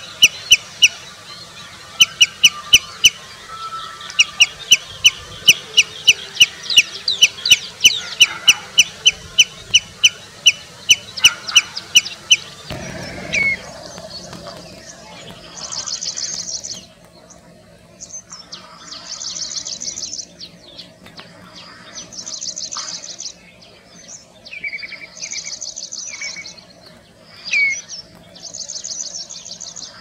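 Common redshank calling: a fast, steady series of sharp, high piping notes, about three a second, for the first dozen seconds. Then come shorter bursts of rapid high trilled notes every few seconds, with an occasional lower down-slurred call.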